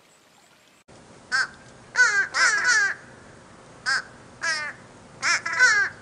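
Fish crow calling: about eight short caws, singly and in quick runs of two or three.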